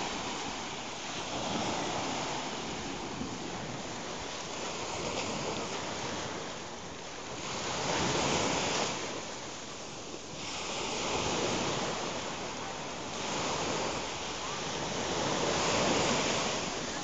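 Small sea waves breaking and washing up the sand at the shoreline. The surf swells and falls back about every three seconds.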